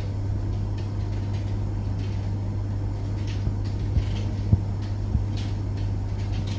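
Potatoes being peeled by hand: a few faint short scraping strokes and light taps around the middle, over a steady low hum.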